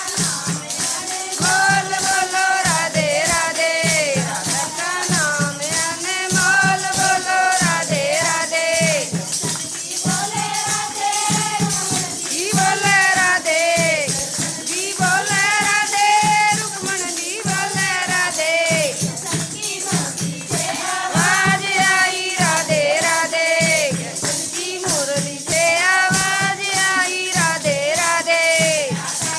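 Haryanvi devotional bhajan sung to a steady rhythm of jingling, rattling percussion over low drum beats.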